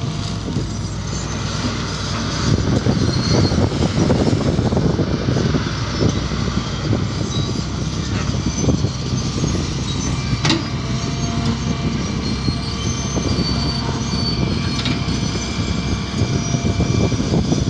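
Hitachi EX200 hydraulic excavator working: its diesel engine runs steadily under load while the bucket digs into and dumps dry soil, with continual clatter. A single sharp knock about ten seconds in.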